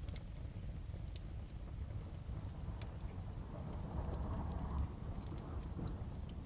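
Crackling wood fire with scattered sharp pops and snaps over a steady low rumble of storm and thunder. The rumble swells briefly a little past the middle.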